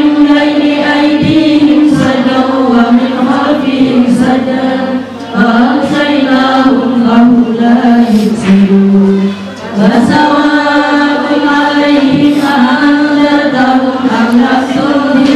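A group of women's voices chanting an Islamic devotional song together, unaccompanied and amplified through a microphone, in long held notes. There are two short breaks for breath, about five and nine seconds in.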